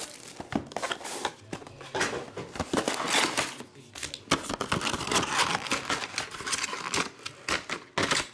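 Foil-wrapped trading card packs and their cardboard box being handled: irregular crinkling and rustling, with many short sharp clicks and scrapes as the packs come out of the box and are stacked on the table.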